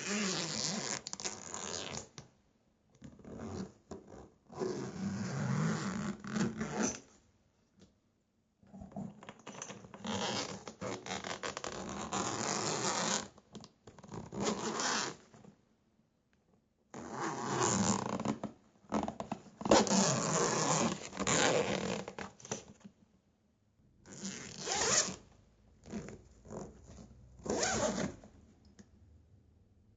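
A zipper being pulled repeatedly, each stroke a rasping run of teeth lasting from under a second to about four seconds, with short pauses between strokes.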